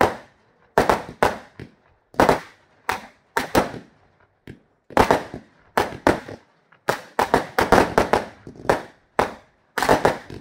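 Aerial fireworks shells launching and bursting in a run of sharp bangs, irregularly spaced with brief gaps, coming fastest in the last few seconds.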